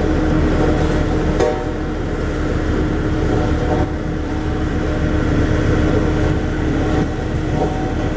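Road roller's diesel engine running steadily under load, with a fast low pulsing beneath a steady hum.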